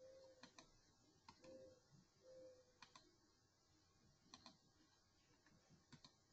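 Near silence broken by faint computer mouse clicks, about five of them and mostly in close pairs. There are also three brief faint hums in the first half.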